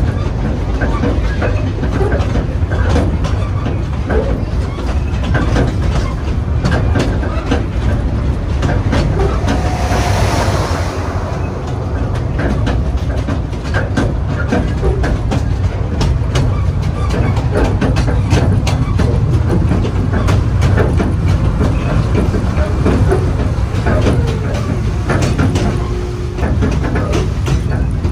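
Riding on a steam-hauled narrow-gauge park train: the cars run with a steady low rumble and the wheels clack over the rail joints. A brief hiss rises about ten seconds in.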